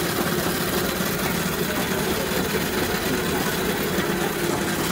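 A running engine or motor droning steadily with a constant low hum.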